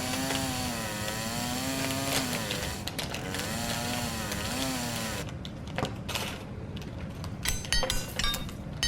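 A buzzing drone whose pitch wavers slowly up and down cuts off about five seconds in. Then plastic LEGO parts bags crinkle and the pieces inside click and rattle.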